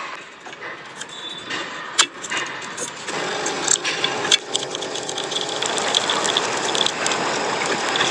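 A few sharp clicks and knocks, then a car engine starts about three seconds in and keeps running steadily.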